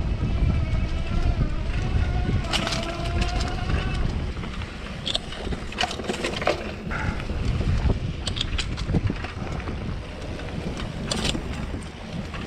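Riding a hardtail electric mountain bike fast down sandy dirt singletrack: heavy wind buffeting on the microphone over the tyres rolling and crunching through sand and dry leaves. The rear hub motor whines in the first few seconds, rising and falling, and sharp clicks and rattles come several times over bumps.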